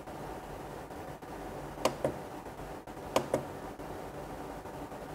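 Push buttons on an addressable LED pixel controller being pressed, each press a quick double click of press and release, twice: about two seconds in and again a little over a second later. Faint steady background noise lies under them.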